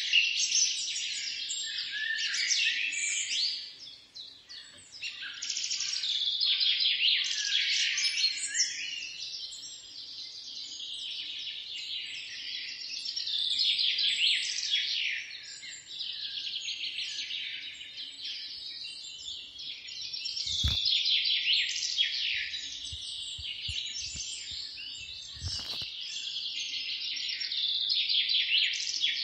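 Many small birds chirping at once, a dense twittering of rapid short chirps that swells and fades in waves. Two dull thumps come in the second half, about five seconds apart.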